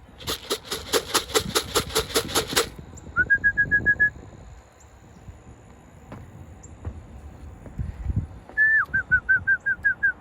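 Short runs of quick, high trilled whistling, one after about three seconds and one near the end, used to call racing pigeons down to the loft. In the first two and a half seconds there is a loud, even rattle of about six strokes a second.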